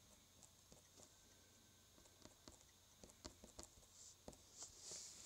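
Near silence: room tone with a few faint, short taps scattered through it.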